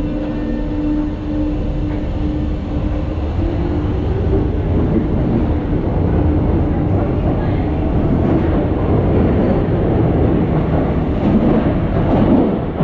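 Paris Metro MF77 train running, its DC chopper (PWM) traction drive giving a steady tone that steps up in pitch a few seconds in, over a loud rumble of the wheels on the rails that slowly grows.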